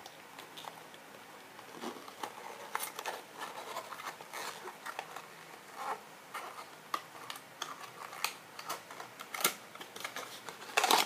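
Hands unwrapping a small item from its packaging: irregular crinkling and rustling, sparse at first and busier from about two seconds in, with a louder crackle near the end.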